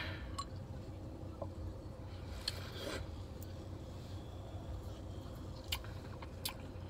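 Quiet mouth sounds of someone sipping and tasting ramune soda, a few faint clicks and smacks over a low steady hum.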